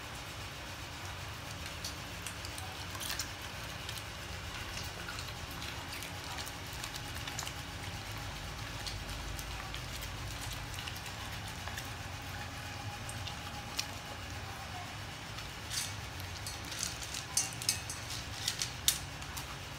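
A Belgian Malinois chewing raw chicken heads and feet, with scattered wet crunches and clicks. Near the end comes a run of sharper, louder crunches and clicks as it eats from a stainless steel bowl. A steady low hum lies underneath.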